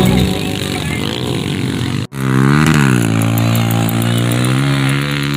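Small pit bike engines running and revving, their pitch gliding up and down. The sound drops out for an instant about two seconds in. After that, one engine rises and falls in pitch and then holds steady.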